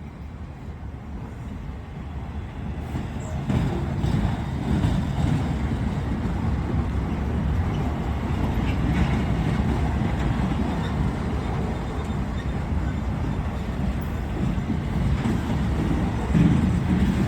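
CSX work train moving maintenance equipment, rolling past with a steady low rumble of wheels on rail that grows louder about three and a half seconds in.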